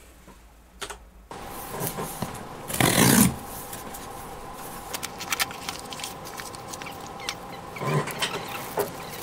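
Packaging being handled: a cardboard box, a clear plastic parts strip and a foil anti-static bag rustle and crackle, with scattered clicks and a louder rustle about three seconds in and again near the end. It starts about a second in, over a faint steady hum.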